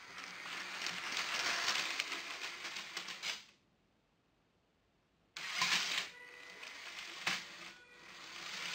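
Vintage 9V Lego trains running on plastic track: a clicking, rattling clatter of wheels and plastic parts with a faint motor whine. It comes in two stretches with a pause of about two seconds between them.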